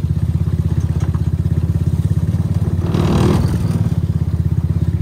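X-Pro 125cc mini Jeep's small engine running steadily in first gear on a downhill trail run, with an even rapid pulsing. About three seconds in, a brief scraping rush of noise rises over the engine.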